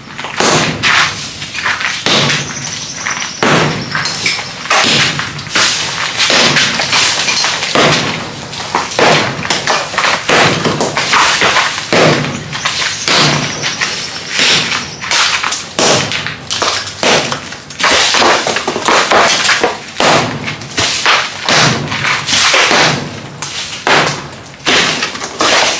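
Hammer blows breaking up a cement wall, struck from overhead in a quick, uneven run of sharp cracks and knocks, with pieces of the wall breaking away.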